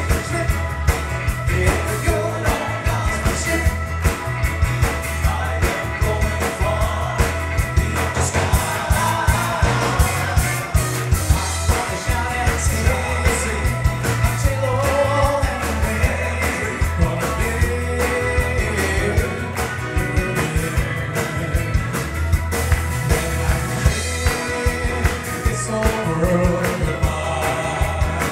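A band plays a song with singing, over a steady drum beat and bass.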